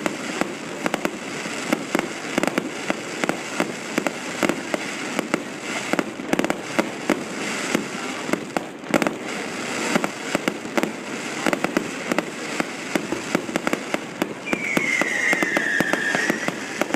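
Fireworks display: a dense, unbroken run of loud bangs and crackles, with a short high whistle that falls in pitch near the end.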